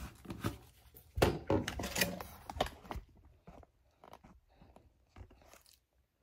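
Handling noise of a phone being picked up and moved about: rustling and sharp clicks and crackles, loudest in the first three seconds, then a few fainter ticks that die away.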